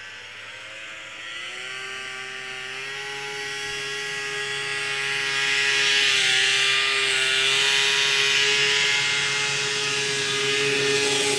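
A small engine running at high revs: its pitch climbs over the first couple of seconds, then holds steady as it gets louder.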